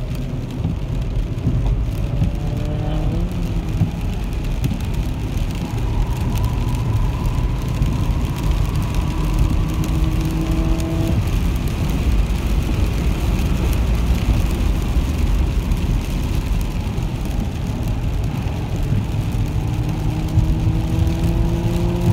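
Dual-motor Tesla Model S P100D heard from inside the cabin: the electric drive whines, rising in pitch as the car accelerates, over a steady rumble of tyres on a wet track. The whine climbs for several seconds, cuts off suddenly, and starts rising again near the end.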